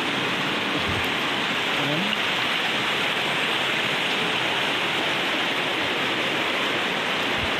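Steady rushing of a swollen river in flood, an even, unbroken wash of water noise.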